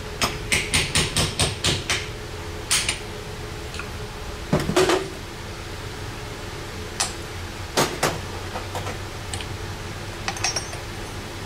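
Light metal clicks and clinks from hand tools and parts working on a dirt-bike rear shock absorber being taken apart: a quick run of about five clicks a second, then single clicks and one heavier clunk about halfway through.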